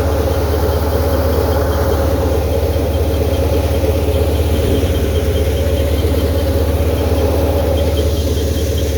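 Tractor engine running steadily at a constant speed, with a faint high ticking repeating about five times a second.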